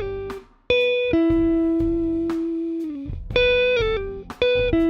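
Electric guitar with a clean tone playing a slow, legato descending pull-off phrase twice. Each time, a few quick falling notes lead into a long held lower note that slides slightly down in pitch as it dies away.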